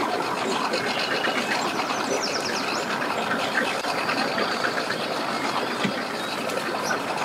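Outboard boat engines running steadily, with faint distant voices.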